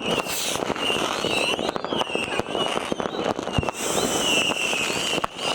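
New Year fireworks and firecrackers going off all around: a dense run of bangs and cracks, with high wavering whistles over them.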